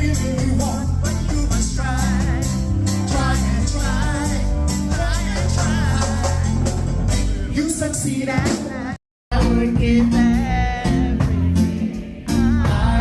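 Reggae song with singing over a heavy bass line. It cuts out completely for a moment about nine seconds in, then carries on.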